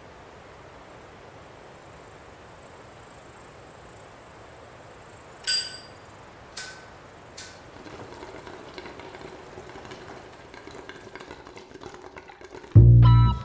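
Steady faint hiss, broken by three sharp metallic clinks that ring briefly, about a second apart, followed by a run of faint ticks. Near the end loud music kicks in with a bass line and plucked guitar.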